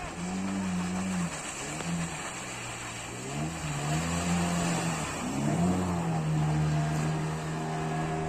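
Motorboat engine running. Its pitch drops and rises a few times as the throttle changes, then holds steady at a slightly lower pitch for the last couple of seconds, over a wash of noise.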